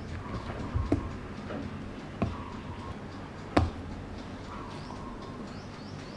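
A silicone spatula working cake batter in a glass mixing bowl, with three sharp taps against the bowl, about one, two and three and a half seconds in, the last as a dollop of meringue is dropped into the batter.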